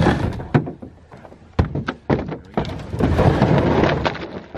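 Knocks and thuds of a snowmobile's hull bumping against a pickup's tailgate and bed as it is heaved aboard, with a stretch of scraping and sliding about two-thirds of the way in.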